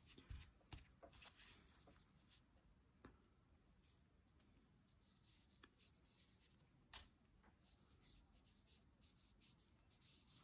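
Near silence, with faint scratches and a few soft taps of a water brush pen working watercolour onto paper; the clearest tap comes about seven seconds in.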